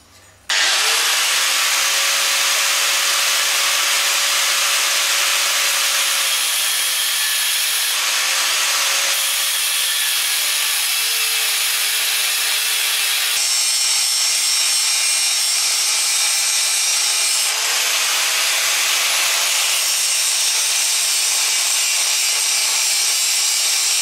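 Handheld Hitachi angle grinder starting up about half a second in and then cutting into steel flat bar, a steady grinding hiss with a motor whine that shifts a little in pitch as the disc bites. It is cutting the slot in a flat-bar tong blank.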